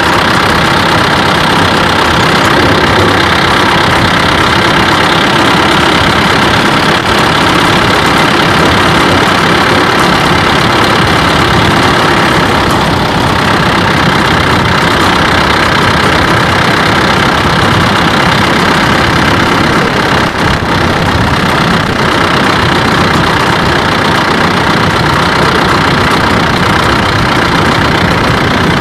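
Steady, loud engine and road noise of a vehicle driving along a paved road, heard from on board.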